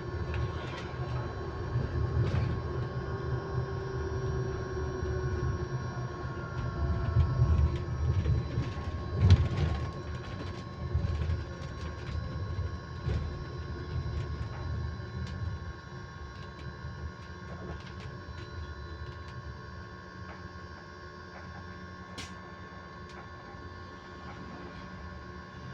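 Electric bus with a steady whine held on one constant pitch, heard over the rumble of the bus. The rumble is louder for the first half and falls away about halfway through, and there are a few knocks, the sharpest about nine seconds in.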